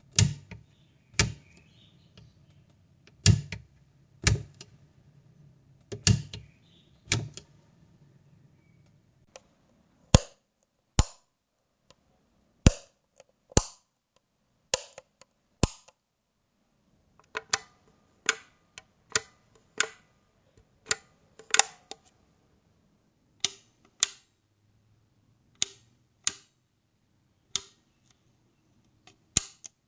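Light switch clicked on and off over and over: about two dozen sharp, separate clicks at uneven spacing, some in quick pairs. The first handful have a low rumble under them.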